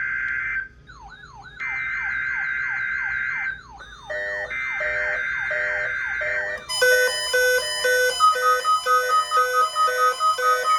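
NOAA Weather Radio weekly test: the digital SAME alert header is sent as three bursts of two-tone data, and the weather-alert receivers in the room go off in response. Between the bursts an alarm gives a repeated falling chirp with a high warble above it. From about seven seconds in, several receivers sound pulsed beeps that alternate in pitch.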